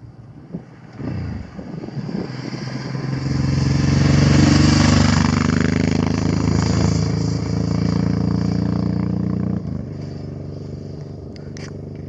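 Motorcycle engine running as a bike rides by, growing loudest about four to five seconds in, then easing and dropping off near the ten-second mark.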